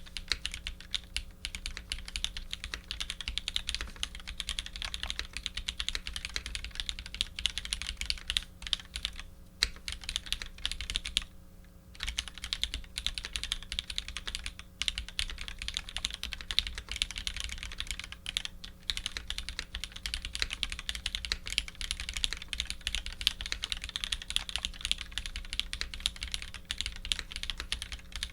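Continuous typing on a Matrix 2.0 add custom mechanical keyboard with lubed, filmed Vintage Black linear switches, GMK keycaps and an aluminium plate: a dense stream of keystroke clacks that pauses briefly about twelve seconds in.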